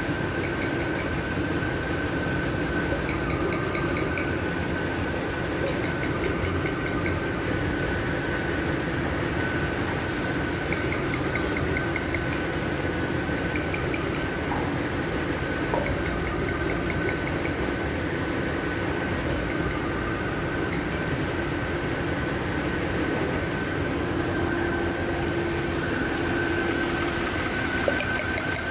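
Mercedes-Benz W221 S-Class engine idling steadily with the misfire it is being diagnosed for.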